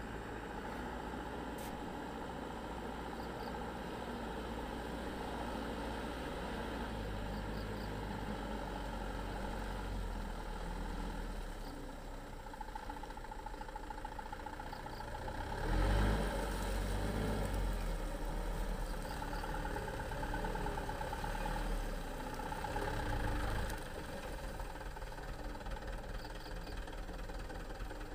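Light cargo truck's engine running at low speed as the truck crawls through deep mud, with a brief louder surge about halfway through.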